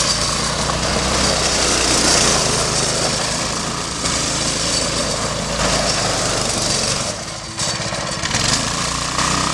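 Small gas engine of an off-road go-kart buggy running hard as the kart slides and spins on loose gravel, with gravel and dirt crunching and spraying under the tyres. The noise dips briefly about seven seconds in, then picks up again.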